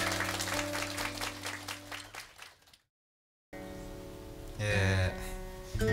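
Audience applause over the last ringing acoustic guitar chord, fading out to a moment of dead silence. Faint room noise and a brief voice follow, and the acoustic guitar starts again near the end.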